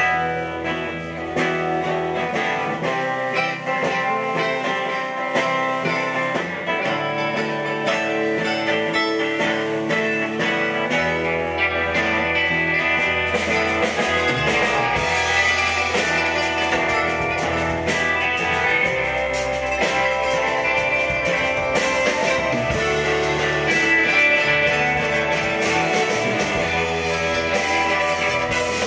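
Live band playing an instrumental opening: electric guitars over bass and drums, with the low end filling out about eleven seconds in.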